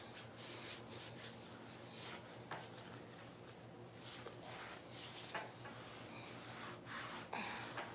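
Faint, irregular rubbing and rustling close to the microphone, a string of short scrapes, over a low steady hum.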